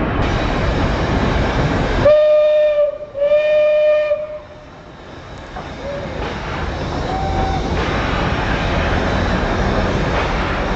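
Steam locomotive whistle blown twice, each blast about a second long with a short break between, a couple of seconds in. A steady rushing noise drops away after the whistle and slowly builds back, with a faint short toot around the middle.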